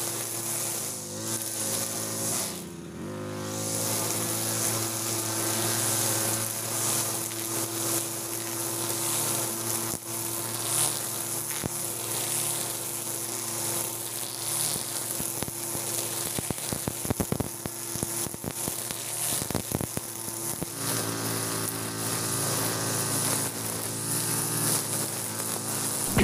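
Two-stroke brush cutter running at working throttle, its nylon trimmer line hissing through grass over a steady engine tone. About two seconds in the engine eases off and picks back up, and past the middle comes a run of sharp ticks.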